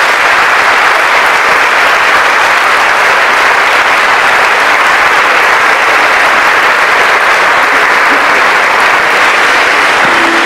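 Large audience applauding steadily in a hall, a dense, even clapping that holds at full strength throughout.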